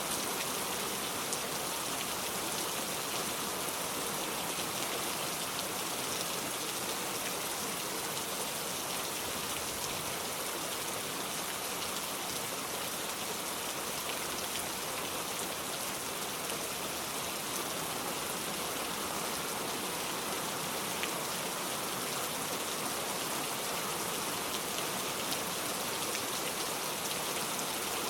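Heavy rain falling steadily, a dense even hiss of drops hitting a surface.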